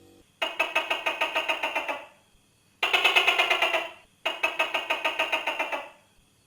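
Tokay gecko calling in three rapid rattling trains, each about one and a half seconds long with about eight pulses a second, fading at the end of each.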